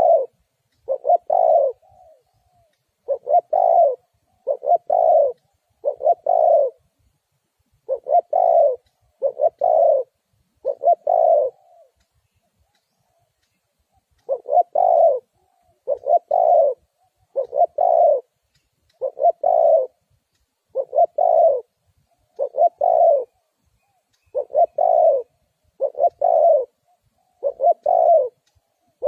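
Spotted dove cooing: a long series of short, low coos spaced about one and a half seconds apart, with a pause of a couple of seconds midway, separated by clean silence. It is a recorded call of the kind used to lure wild spotted doves.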